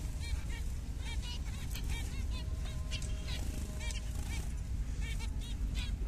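A group of zebra finches calling: many short, repeated calls, several a second and often overlapping, over a steady low rumble.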